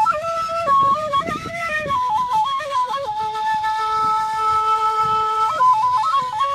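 Nay (end-blown cane flute) playing a slow melody in short stepped notes, then holding one long note from about three seconds in until about five and a half seconds, before moving on with quick ornamented notes.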